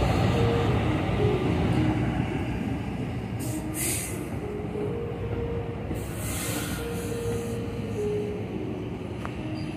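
New Jersey Transit Multilevel coach train rolling past, a steady rumble of wheels on rail with thin squealing tones that come and go, getting gradually quieter. Two brief rushes of hiss come about four and six seconds in.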